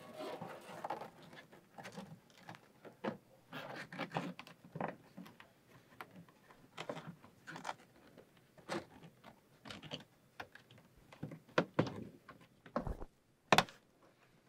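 Antenna cable being routed and tucked behind plastic interior trim panels in a vehicle: irregular rustling, scraping and clicking of cable and plastic, with a few sharper knocks near the end.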